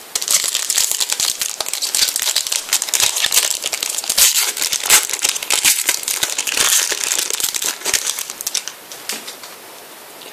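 Foil wrapper of a Panini Prizm trading-card pack being torn open and crumpled, with the cards inside shuffled: a dense run of crackles, mostly high-pitched, that thins out to a few faint ticks about nine seconds in.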